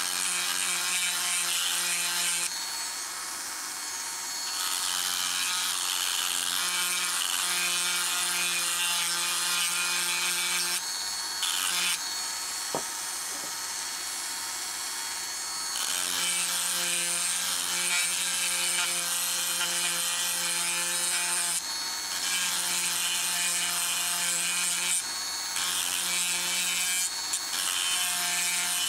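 Small handheld rotary tool running steadily with a high whine while its bit grinds into the edge of a small wooden piece in repeated passes. The grinding hiss eases off for a few seconds twice while the motor keeps running, and there is a single click about halfway through.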